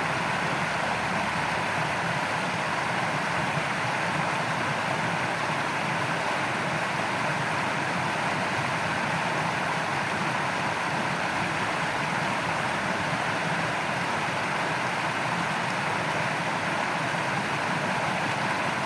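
Steady, even rush of shallow flowing stream water.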